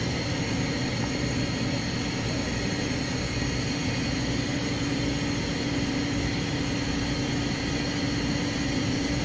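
Refrigeration condensing unit (compressor and condenser fan) running steadily with a constant low hum and fan noise, while it is being charged with R-134a refrigerant.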